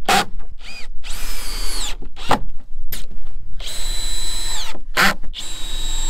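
Handheld power drill drilling into a sign board. It runs in several bursts of about a second, each ending in a falling whine as the motor spins down, with short blips of the trigger between them.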